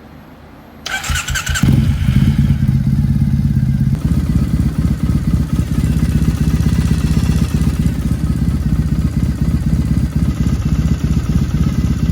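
A 2012 Triumph Bonneville's air-cooled 865 cc parallel-twin engine is cranked by the electric starter about a second in. It catches within a second and settles into a steady idle, run just after an oil change to circulate the fresh oil before the level is rechecked.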